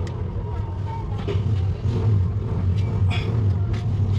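A steady low rumble, with a few faint light metallic clicks of hand tools working on the gear-shift cable linkage.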